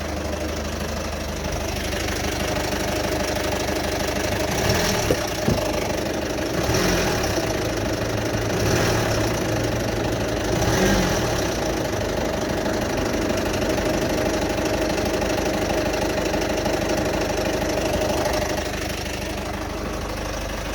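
2008 Citroen Berlingo's 1.6 HDi four-cylinder turbodiesel idling roughly with a knocking noise, plus a couple of sharp clicks about five seconds in and a few brief swells in level through the middle. The noise has no known cause: no fault codes show, and it persists after a new turbo, EGR valve and fuel sensor.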